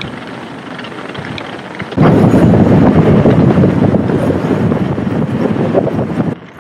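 Mountain bike on the move: a steady rushing noise of wind and rolling. About two seconds in it jumps abruptly to a loud, dense rumble and stays there, then cuts off sharply just before the end.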